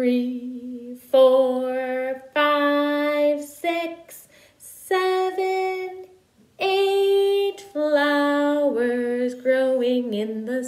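A woman singing slowly, a run of long held notes with short breaks between them.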